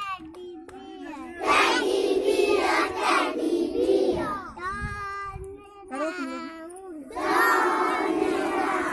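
Young children singing a nursery rhyme: a single child's voice carries it in the middle, and a group of children sing or chant along loudly in two stretches, about a second and a half in and again about seven seconds in.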